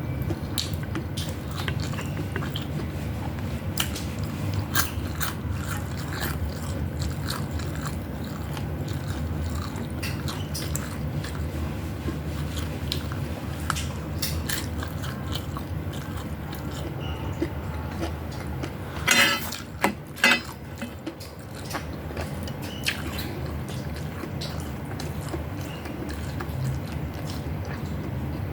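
People eating a meal: biting and chewing with scattered small clicks of utensils or dishes, over a steady low hum. About two-thirds of the way through there are two louder sharp knocks.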